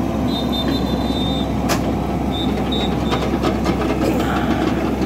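Heavy diesel engine of a tracked excavator running steadily beside an off-road buggy stuck in mud, a dense low rumble with no revving. A high whistle sounds for about a second near the start, then twice briefly.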